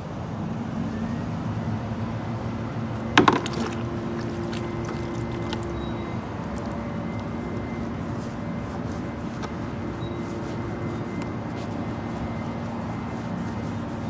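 Steady drone of an idling vehicle engine, with one sharp knock about three seconds in. Lighter scraping and clicking come from a gas-station window squeegee scrubbing wet, soapy bare feet and legs on concrete.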